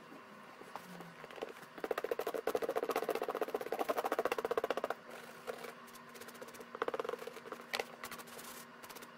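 Small toothbrush scrubbing a leather riding boot in fast back-and-forth strokes, loudest from about two to five seconds in. After that come quieter, irregular rubbing and handling sounds, with a sharp click near the end.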